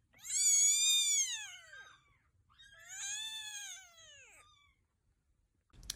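A cat meowing twice: a long call lasting well over a second, then a shorter, quieter one. Each rises and then falls in pitch.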